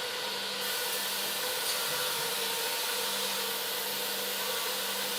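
Minimax ME 40 edge banding machine running steadily, a constant motor hum with a hiss over it.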